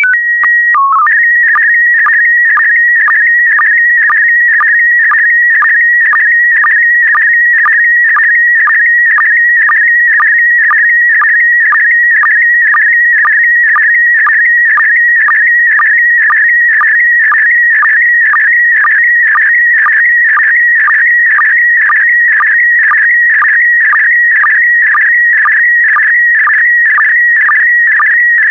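PD120 slow-scan television (SSTV) signal: in the first second a short header of alternating tones and a dip to a lower tone (the mode's start code), then the image scan, a continuous warbling tone near 2 kHz broken by short sync pulses about twice a second.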